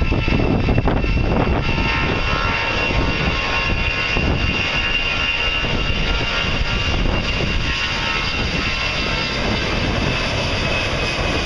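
Jet engines of an easyJet Airbus A319-111 (CFM56-5B turbofans) running as the airliner rolls along the runway: a steady high whine over a continuous rumble.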